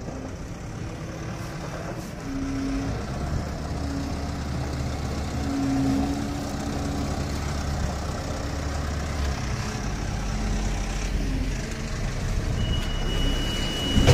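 Working vehicle engines, such as a forklift's, running as a steady low drone with a faint hum that comes and goes. Near the end a continuous high-pitched tone starts.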